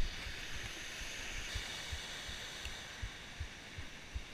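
Steady rushing hiss of a distant waterfall, with soft, irregular low thumps of someone's footsteps and body knocking the camera while scrambling over granite boulders.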